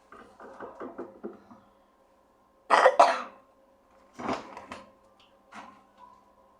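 A person coughing and spluttering: a few soft sounds, then loud harsh coughs about three seconds in, another about a second later and a smaller one near the end.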